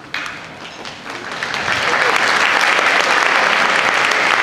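Audience applauding in a concert hall, swelling over the first two seconds into steady clapping.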